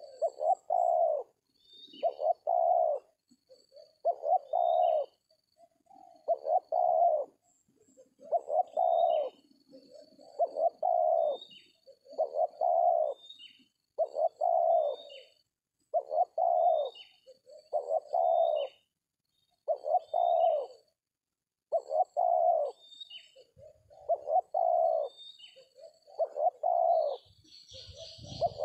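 Spotted dove (tekukur) cooing over and over, one low cooing phrase about every two seconds. Faint high chirps of small birds run alongside.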